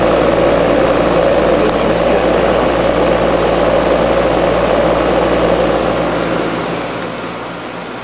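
Homebuilt heat pump water heater made from air-conditioner parts running steadily: the refrigeration compressor hums and the radiator fan blows air. A brief click about two seconds in, and the sound fades out near the end.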